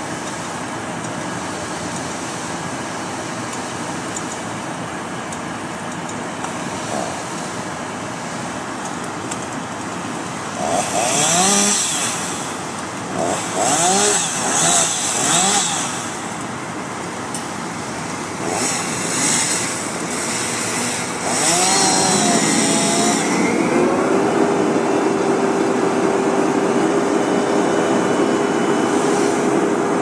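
Heavy machinery running steadily, with a chainsaw revved and cutting in several bursts from about ten seconds in. From about twenty-two seconds in it gets louder: a short rising whine settles into a steady hum as the wood chipper comes up to speed for feeding branches.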